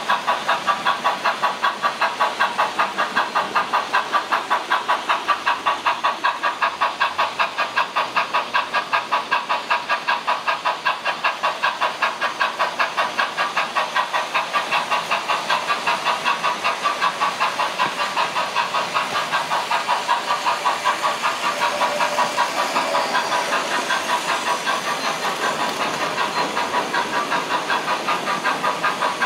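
Märklin digital model steam locomotive running, with a steady chuffing rhythm of about three to four beats a second.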